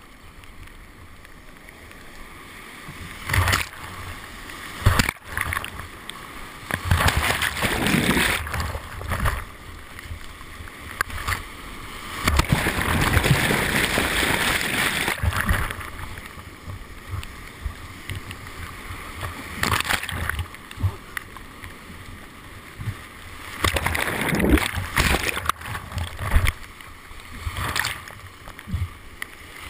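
Flooded whitewater rushing against a kayak-mounted camera, with repeated loud splashing surges as waves break over the boat and microphone; the longest surge, several seconds in the middle, comes as the camera goes under the muddy water.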